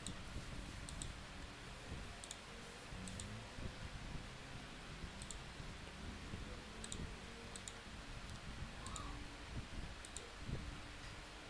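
Computer mouse clicking: a dozen or so scattered clicks, several in quick pairs, over faint steady room noise.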